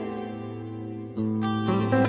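Background music led by guitar, with new plucked notes a little past halfway through.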